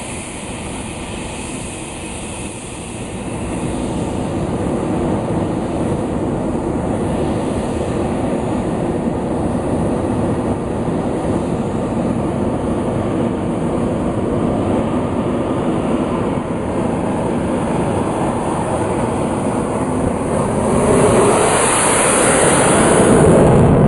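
Jet noise from an English Electric Lightning's twin Rolls-Royce Avon turbojets during a fast taxi run. It is loud and steady, grows louder about three seconds in, and is loudest near the end, with a bright hiss building on top.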